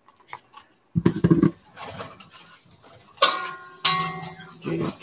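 Metal spatula scraping and knocking against a Lodge 14-inch cast iron wok while stirring diced onions, starting about a second in, with a few ringing metallic clangs near the middle.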